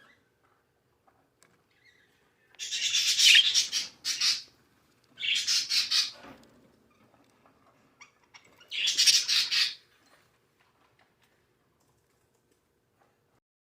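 Budgerigar giving three loud, harsh squawks of about a second each, a few seconds apart.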